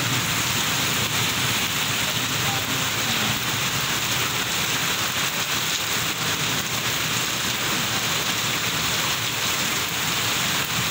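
Torrential rain pouring steadily onto a flooded street, an even dense hiss with no let-up.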